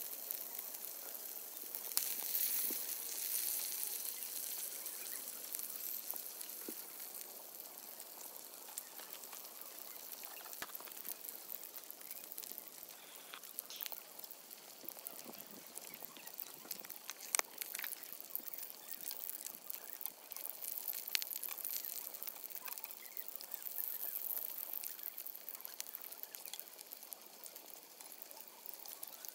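Pork belly frying in a cast-iron skillet over a wood fire: a steady hiss of sizzling fat full of small spitting crackles. A few sharper clicks of tongs against the pan stand out, the loudest about 17 seconds in.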